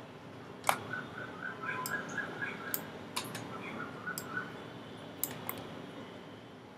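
Computer mouse clicking several times, with two runs of soft rapid ticks from its scroll wheel, over faint steady hiss.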